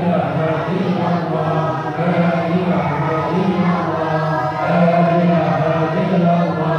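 Men's voices chanting an Islamic recitation together in unison, a lead voice carried on a microphone, in held notes that repeat phrase after phrase.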